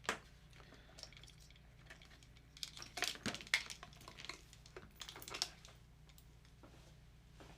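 Scattered clicks and clinks of small hard objects being handled and set down, busiest about three seconds in and again around five seconds, over a steady low hum.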